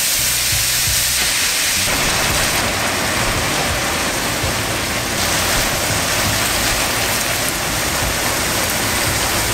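Food frying in a pan: a steady, loud sizzle that grows fuller about two seconds in.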